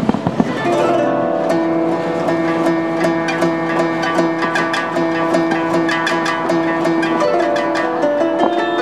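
Japanese-style background music led by plucked koto strings: quick repeated plucked notes over a held lower tone.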